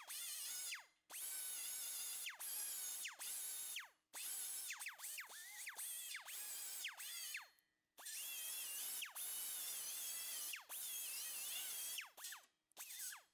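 Right-angle air die grinder with a small sanding disc grinding the tack welds on a sheet-steel butt seam in about a dozen short bursts. Each burst is a high whine that falls in pitch as the throttle is let off and the disc winds down, with brief pauses between.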